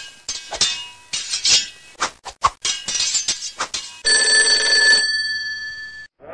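Intro sound effects: a quick run of clinking, chiming hits for about four seconds, then a steady bell-like ringing tone that lasts about two seconds and cuts off.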